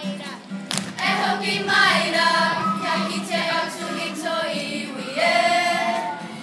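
A group of school children singing together in a kapa haka action song (waiata-ā-ringa), several voices in unison with sliding pitches. A short sharp knock comes just before the singing begins.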